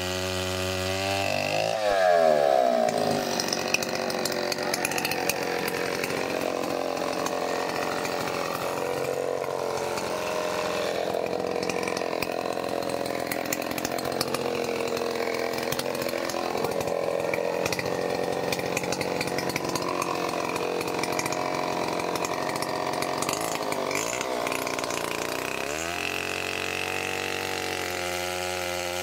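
Large gasoline chainsaw idling, revving up about two seconds in and cutting through a tree trunk at full throttle, then dropping back to idle a few seconds before the end.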